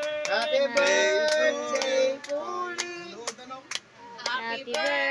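Several voices singing together, with hand claps.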